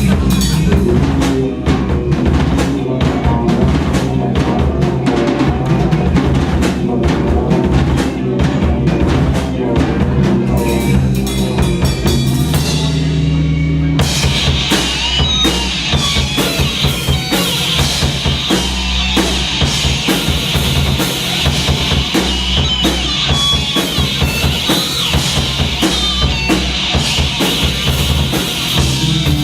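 A live stoner/psychedelic rock band playing, drum kit to the fore with bass drum and snare over bass and guitar. About halfway through the music changes suddenly to a fuller, brighter section.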